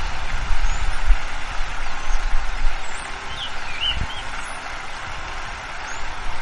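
Forest ambience: a steady rush of wind through trees, with gusty wind buffeting low down. Small birds give short high chirps throughout, and a brief run of lower chirps comes about three seconds in.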